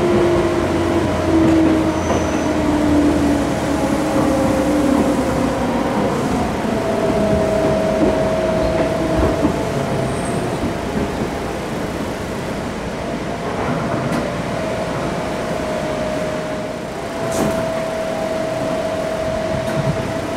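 Seibu new 101 series resistance-controlled electric train running, heard from inside the passenger car: traction motor and gear whine over rail and wheel noise. One whine falls in pitch over the first few seconds, and a higher whine then holds steady.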